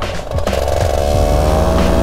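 Paramotor engine running under power in flight, its note coming up strongly about half a second in and then holding steady.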